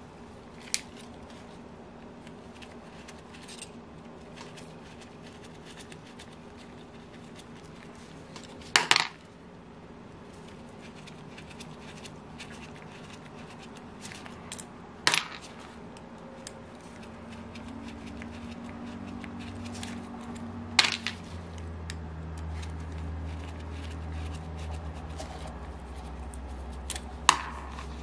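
Small metal engine parts and hand tools clicking and clattering as they are handled and set down while a Saito FA-82 four-stroke glow engine is being taken apart. There are a handful of sharp clicks several seconds apart, with a short cluster near the end. A low hum grows from about two-thirds of the way in.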